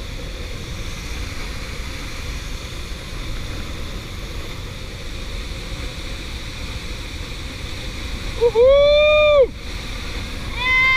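Steady rushing roar of a waterfall. About eight and a half seconds in, a person gives one loud whooping "uhul!" cheer over it.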